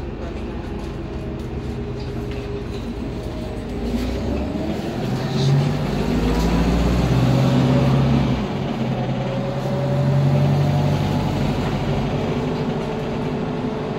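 Volvo 7900A Hybrid articulated bus heard from inside while driving: steady running noise with a drive whine that rises in pitch and grows louder about four seconds in, drops off suddenly after about eight seconds, then swells again briefly.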